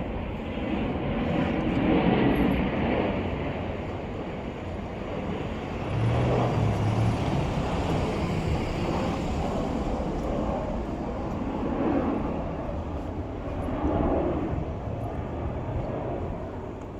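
Engine and road noise from passing vehicles, swelling and fading several times, with a low hum about six seconds in.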